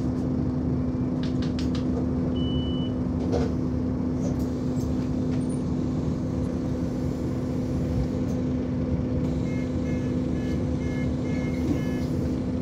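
Cabin sound of a Scania Omnicity double-deck bus: the diesel engine running with a steady hum and low rumble. A single short beep about two and a half seconds in, and a quick run of short electronic beeps near the end.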